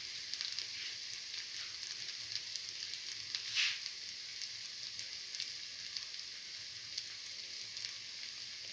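Hot oil sizzling steadily around red lentil and chickpea flour fritters frying in the cavities of a cavity pan. Small crackling pops run through it, with one louder pop about three and a half seconds in.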